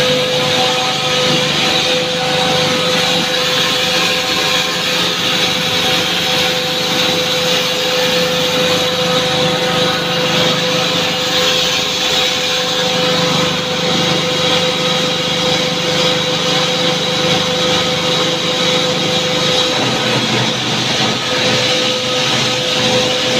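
Plastic pelletizing line running: the dewatering unit and its electric motors give a steady hum and whine, under a dense hiss of freshly cut PP granules pouring from the chute into a steel bin. The lower part of the hum drops away about twenty seconds in.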